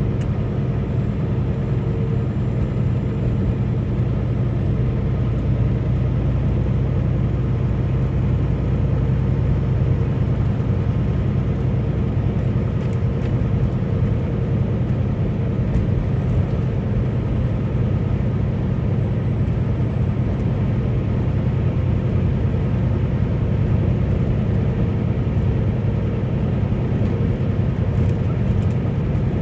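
Semi truck running at a steady cruise: an even engine drone with road noise.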